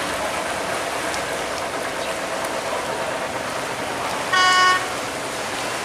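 Steady rush of turbulent water through an open sluice gate. A wooden cargo boat is forcing its way through it. About four and a half seconds in, a horn sounds once for about half a second.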